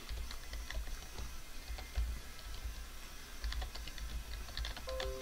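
Typing on a computer keyboard: a run of quick, irregular keystrokes.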